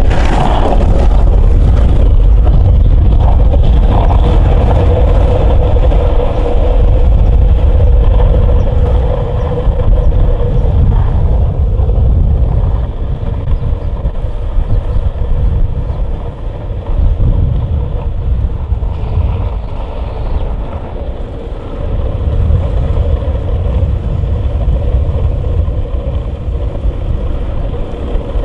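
Longboard wheels rolling fast on asphalt, a loud steady rumble mixed with wind buffeting the microphone, with a steady whine through the first third.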